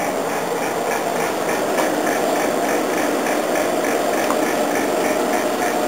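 Heat pump running: a steady mechanical hum with a steady tone in it.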